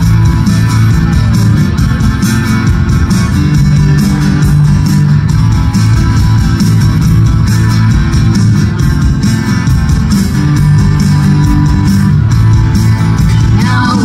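A live band plays an instrumental passage: strummed acoustic and electric guitars over bass and drums, loud and continuous. A singer's voice comes in right at the end.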